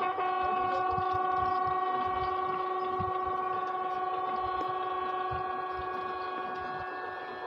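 A bugle holding one long, steady note that slowly fades near the end, the held note of a ceremonial bugle call sounded while guards salute and the flags come down.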